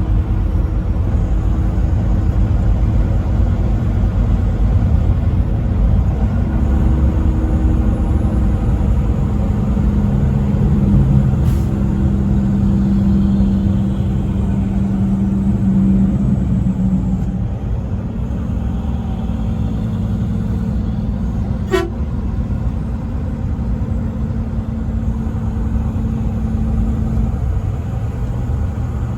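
Truck driving on the highway with a steady low road and engine rumble, and a truck horn sounding long, held tones, loudest from about six to seventeen seconds in. A single sharp click comes a little after twenty seconds.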